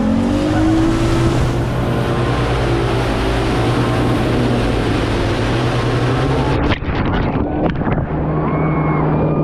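Motorized watercraft engine running at speed, its pitch rising over the first second, with heavy wind on the microphone. The sound breaks up with a few clicks about seven seconds in, then turns to a steadier hum with short pitched notes.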